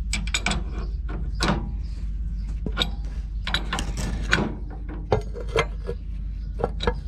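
Irregular metallic clicks and clanks of hand wrenches and parts being handled, over a steady low hum.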